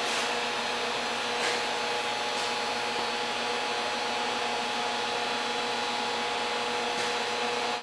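Homemade resonant-lock induction heater rig running steadily under load as it heats an iron billet in its coil: an even whirring hiss with a constant hum. A few faint ticks sound over it.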